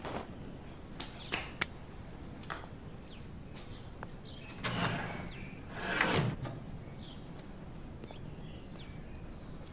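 A few light knocks and clicks of objects being handled among debris in the first couple of seconds, then two short rushing swells of noise about five and six seconds in, the second one the loudest.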